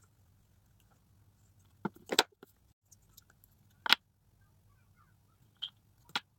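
A handful of short, sharp clicks and knocks, the loudest about two seconds in and again near four seconds: handling noise from a squeeze tube of face cream being opened and squeezed by hand.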